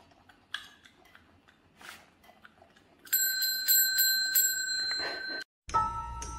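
Faint clicks, then a bell rung over and over, about three strikes a second, for a little over two seconds. It cuts off abruptly, and a different steady ringing tone over a low hum follows.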